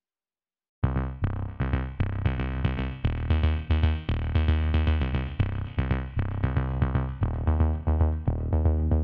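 Electronic background music with a steady beat, synthesizer notes and a heavy bass, starting after almost a second of silence.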